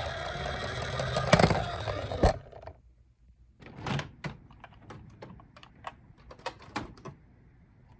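A loud rushing noise that cuts off sharply a little over two seconds in, then after a pause a run of small, irregular clicks and taps from plastic toy minicars being handled.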